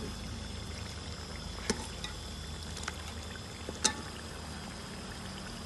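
Metal ladle stirring thick chicken curry gravy simmering in a metal pot: a steady wet bubbling and sloshing, broken by a few sharp clinks of the ladle against the pot, the loudest about four seconds in.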